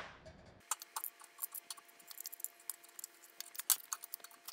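Small metal shock parts clicking and clinking as they are handled and loaded into a parts basket: many irregular light ticks, starting about half a second in, over a faint steady hum.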